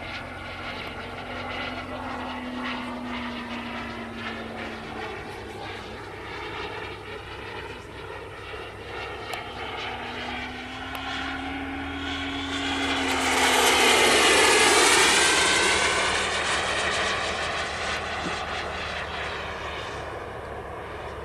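Model delta-wing aircraft flying overhead, its engine heard all along. About 13 s in it swells into a close pass with a falling pitch, then fades.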